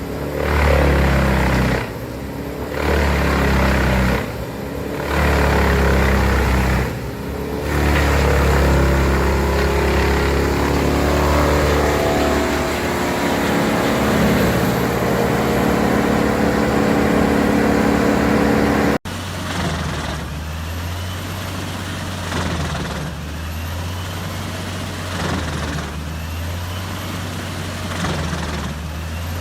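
Large industrial wood chipper running under load as logs are fed through. The engine note sags and recovers several times, then climbs steadily in pitch. About two-thirds of the way through, the sound cuts off abruptly and gives way to a steadier machine drone that pulses about every two seconds, with a faint high whine rising and falling.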